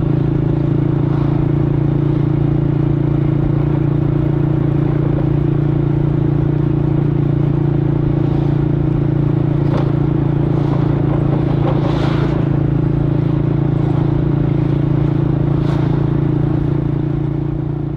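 Motorcycle engine running at steady, unchanging revs, with a few brief sharp noises over it; the sound fades away near the end.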